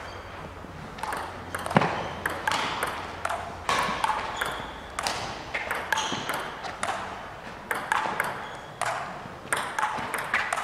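A long table tennis rally: the ball clicking sharply off the bats and the table, about two to three hits a second, starting about a second in.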